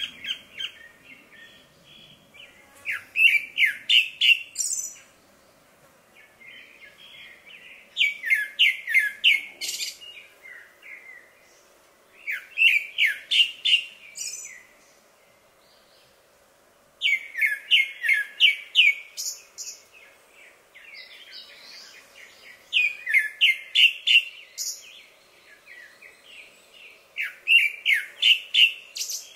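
Male grey-backed thrush singing. Short phrases of quick, loud notes come every four to five seconds, about six phrases in all, with pauses between them.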